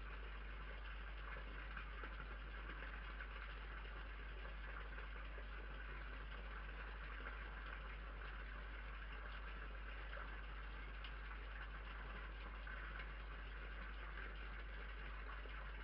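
Steady background hiss with a constant low hum, the microphone noise of a night-vision security camera; no distinct sound from the feeding fox stands out.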